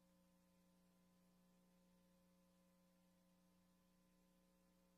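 Near silence, with only a faint steady electrical hum from the VHS playback.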